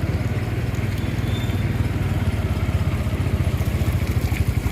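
Truck engine running hard, a steady low rapid throbbing that grows slightly louder near the end.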